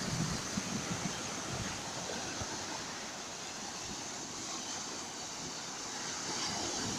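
Ocean surf washing steadily, with wind buffeting the microphone in low gusts during the first second or so.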